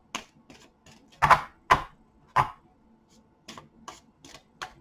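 Irregular light clicks and taps. Three louder knocks come between about one and two and a half seconds in.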